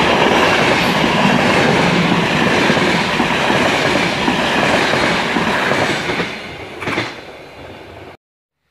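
Passenger coaches of an intercity train behind an ADtranz DE 2000 diesel locomotive rolling past close by, wheels running loudly over the rails. The noise fades as the train moves off, with a sharp clack about seven seconds in, then cuts off suddenly.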